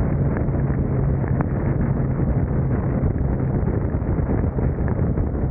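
Touring motorcycle at highway speed in the rain: steady wind rush over the microphone with a steady engine hum underneath, and scattered light ticks of raindrops hitting the camera.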